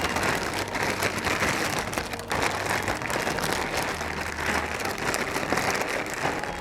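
Chunks of raw potato, carrot, beet and onion being shaken in a zip-top plastic bag with olive oil and seasoning to coat them: a steady rustling, tumbling noise with a brief break about two seconds in.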